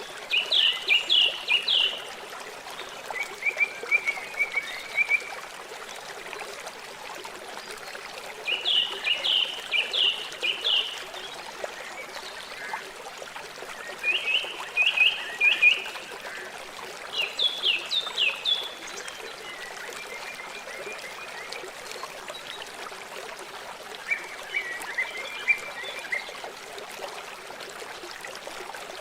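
River water flowing steadily. Over it an animal calls again and again in short bouts of rapid high chirping notes, every few seconds, with louder, higher bouts alternating with fainter, lower ones.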